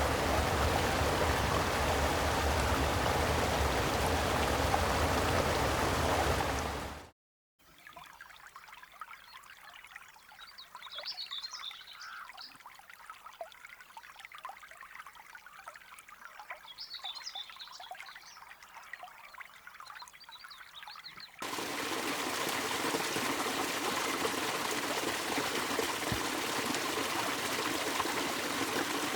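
Creek water rushing steadily, fading out about seven seconds in. A much quieter trickle of water follows, then the loud rushing of the stream cuts back in abruptly near the end.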